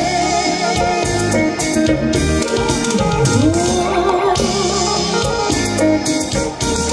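Live band playing an instrumental passage: electric guitar lead over drum kit and percussion, with one melody line dipping and rising again about three seconds in.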